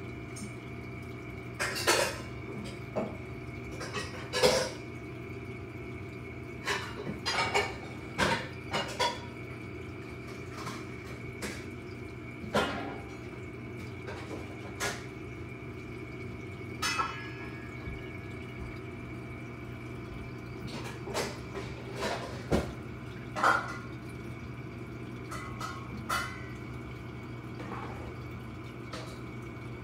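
Steady hum of running reef aquarium equipment, with irregular sharp clicks and clinks, roughly one a second and sometimes two close together.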